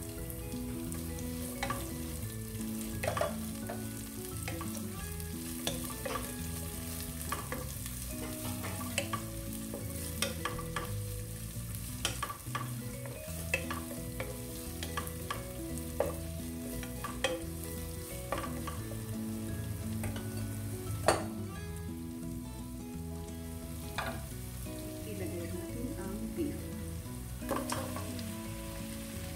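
Chopped onion and garlic sizzling in hot oil in a nonstick pan, stirred with a spatula that scrapes and knocks against the pan many times; the sharpest knock comes about two-thirds of the way through. Soft background music plays under it.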